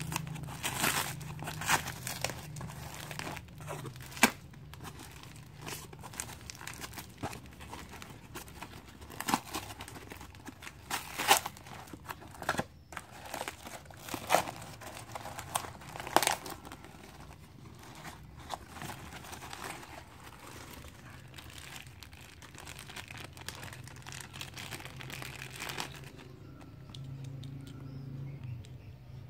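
Cardboard parcel and its paper packing being torn open and rummaged by hand: irregular tearing, ripping and crinkling, with a few sharp rips standing out. Near the end the tearing stops.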